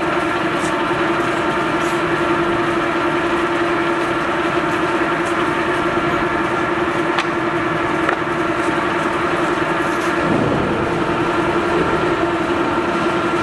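American Tool Works engine lathe running under power: the spindle and headstock gearing give a steady hum with a mid-pitched whine over it. A few light clicks come through as the carriage apron levers are worked, and the tone wavers slightly near the end.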